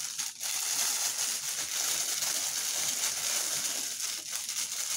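Continuous rustling and crinkling noise from items and packaging being handled, an even hiss that wavers irregularly with no clear strokes.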